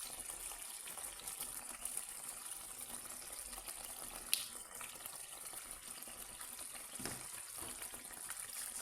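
Curry sauce cooking in a pot on the stove, giving a steady, quiet sizzling hiss, with a couple of faint clicks from utensils or the pot.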